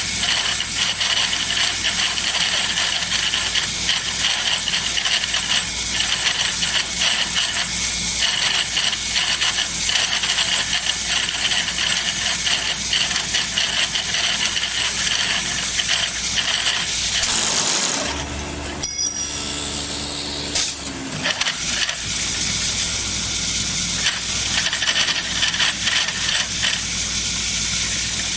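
Automatic wood-toy turning machine running: a steady, loud hissing rattle of the machining on wood. For a few seconds just past halfway this gives way to a quieter, steady motor hum, then the hissing resumes.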